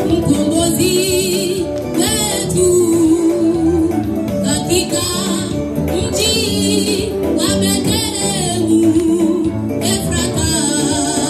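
Women's church choir singing a gospel song through microphones, the voices carrying a wavering melody over steady instrumental accompaniment.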